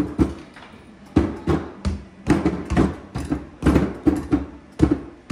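Rapid, irregular thumps of padded mallets striking the targets of an arcade whack-a-mole game, about a dozen hits, each with a short ring.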